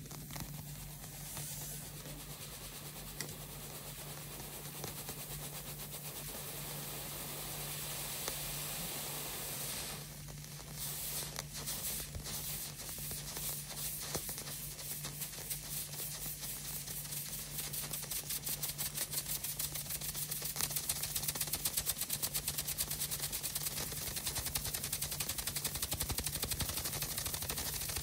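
Hero's engine radial steam turbine on a spirit burner: a steady hiss as the water heats for the first ten seconds or so. Then its side jets start spitting steam in pulses that quicken into a rapid, even rattle as the brass ball spins up, growing louder toward the end.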